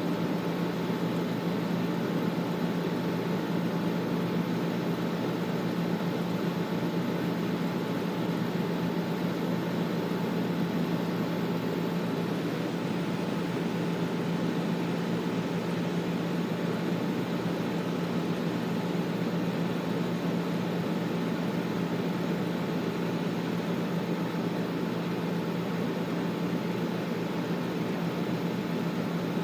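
Air conditioner running steadily: an even whooshing airflow over a low, constant hum.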